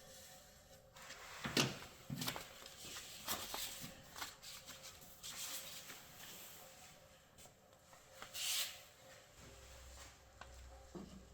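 Plastic tailgate-seal mountings and clip pins being handled: scattered clicks, light knocks and rubbing. The loudest is a sharp knock about one and a half seconds in, with a brief rustle near the end.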